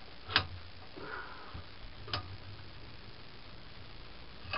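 Safety-wire twisting pliers working steel lock wire: three sharp metallic clicks roughly two seconds apart, the first the loudest.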